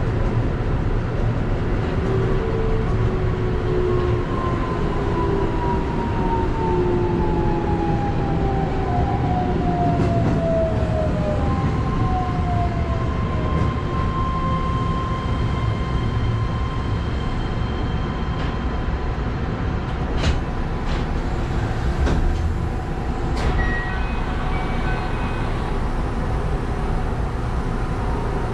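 Keihan electric commuter train running on the line and braking into a station: the motor whine falls in pitch as it slows, over a steady running rumble. A few sharp knocks and short high tones come near the end as it stops.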